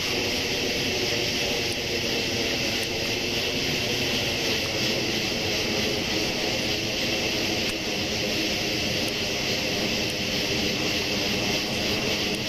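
Aircraft engine humming steadily overhead, its pitch drifting slowly, over a steady high hiss.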